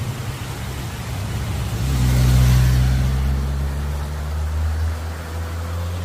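Motorcycle passing close by: its engine hum swells to loudest about two seconds in, then fades slowly as it rides away.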